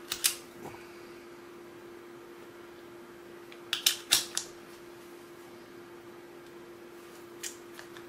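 Hard plastic clicks and knocks of a three-pin mains plug being wiggled and worked in an old, dirty wall socket: two clicks at the start, a quick run of about four around the middle, and one near the end. A steady low hum lies underneath.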